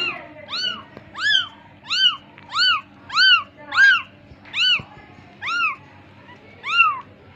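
Young kitten mewing again and again, about ten short high-pitched mews that each rise and fall in pitch, coming every half second to second.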